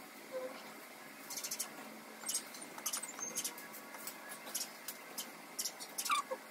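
Metal wire pet-pen panels clinking and rattling as they are handled and fastened together: scattered light clicks, with a brief falling squeak about six seconds in.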